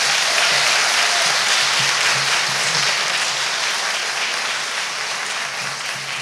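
Audience applauding, a dense steady clapping that begins to fade toward the end.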